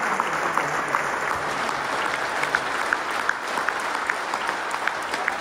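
A large arena crowd applauding steadily, with sharp separate claps from someone close by standing out over the mass of clapping.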